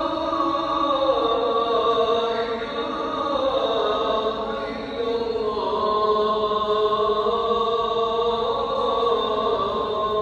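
A voice chanting a slow melody in long held notes, each stepping to a new pitch every second or two.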